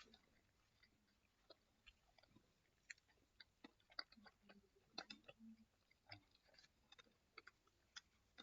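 Faint chewing of a Flipz chocolate-covered pretzel cluster: scattered soft crunches and mouth clicks at irregular intervals.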